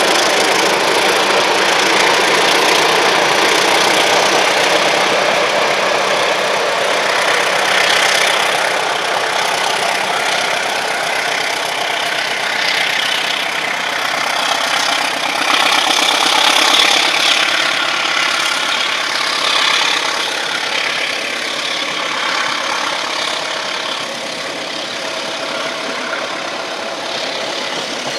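Diesel-electric locomotive CC 203 running as it hauls a passenger train past, with the rumble of the carriages following behind. The sound slowly fades toward the end.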